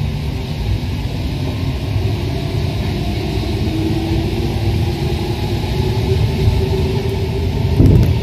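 Paris Métro Line 1 rubber-tyred train running at speed through a tunnel: a steady rumble and rush of tyres and air, with a faint motor whine in the middle and a low thump just before the end.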